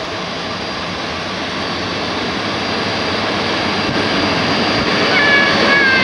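Train arriving with an EP07 electric locomotive: a steady rushing and rolling noise that slowly grows louder, with a thin high whine throughout. About five seconds in, high squeals begin and slide slowly down in pitch, the wheels or brakes squealing as it slows.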